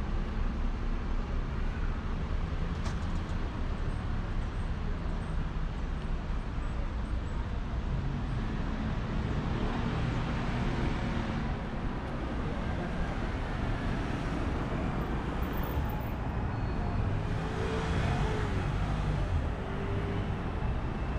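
City street traffic: a steady rumble of cars and buses running past, swelling as vehicles pass about halfway through and again near the end.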